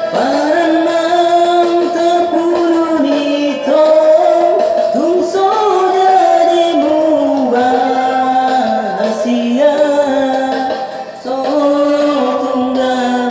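Music from a Batak song: a melody of long held notes that slide between pitches, over steady instrumental backing.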